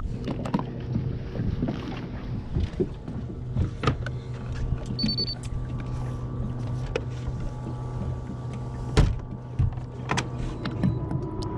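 Bow-mounted electric trolling motor being deployed over the side of a fiberglass boat: several sharp clunks and knocks of the mount and shaft, the loudest about nine seconds in, over a steady low mechanical hum.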